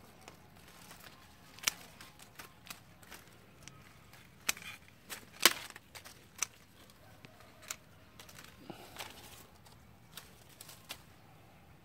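Hand pruning shears snipping through tea-bush branches: a string of sharp, irregular clicks, the loudest about five and a half seconds in.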